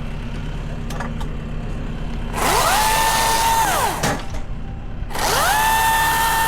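Milwaukee 18-volt battery chainsaw's electric motor revved twice, each time a whine that rises, holds steady for a second or two, then winds down, the second run longer. A steady low hum runs underneath.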